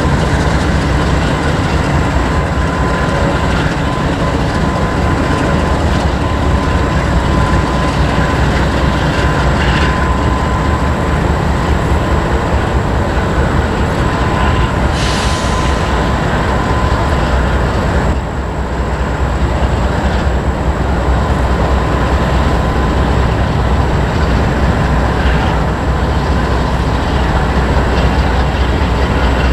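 Norfolk Southern double-stack container train rolling steadily across a stone arch bridge: a continuous rumble of wheels on rail with some clickety-clack. A short high-pitched sound comes about halfway through.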